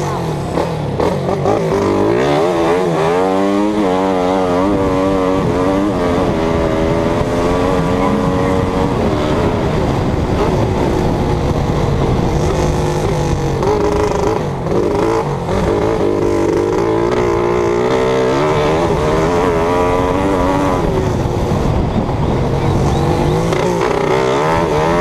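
Race vehicle engine heard onboard, running hard the whole time, its revs climbing and dropping repeatedly as it accelerates and shifts gear.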